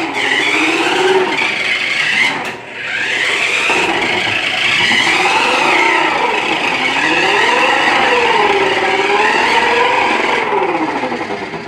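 A steady motor whine that slowly rises and falls in pitch, like a vehicle revving, with a brief drop about two and a half seconds in and a fade near the end.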